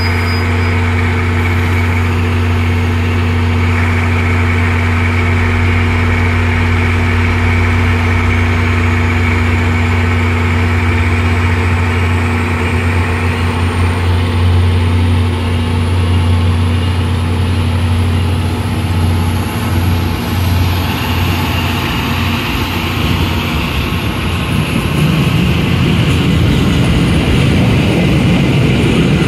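A commuter rail diesel locomotive running with a steady low drone as it pulls its coaches slowly over the crossing, with a faint high whine that climbs slowly in pitch. The engine drone fades about two-thirds of the way through, and the rumble of the coach wheels on the rails grows near the end.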